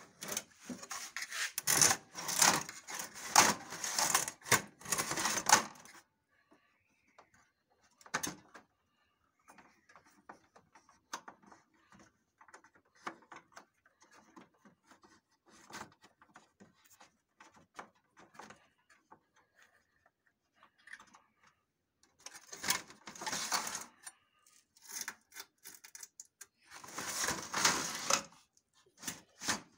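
Hands handling a photocopier's panels and cables: rubbing, scraping and clicking of plastic and metal. It comes as a long dense spell at the start and two shorter spells near the end, with scattered faint clicks in between.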